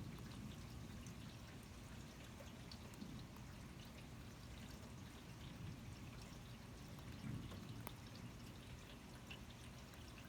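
Steady rain pouring and dripping during a thunderstorm, heard faintly, with many small drip ticks.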